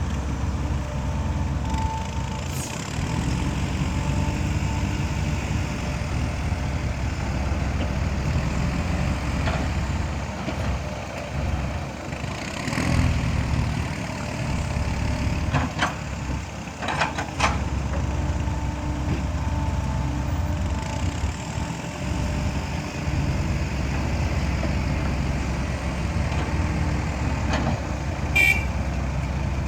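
Heavy diesel dump truck engines running steadily, with a few short metallic knocks and clanks scattered through.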